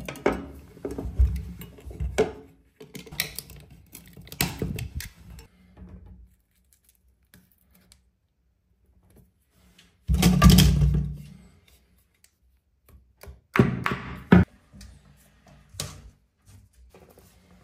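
Hand-tool handling at a tile-to-shower-tray corner joint: short, irregular scraping, rubbing and knocking of a metal scraper on the acrylic tray and crumbled grout, with a louder, longer spell about ten seconds in and another a few seconds later.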